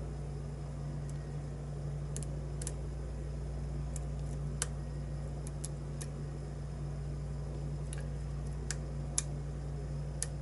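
Small, sharp clicks of a lock pick and tension tool working the pins of a challenge lock, about a dozen at irregular intervals, over a steady low background hum.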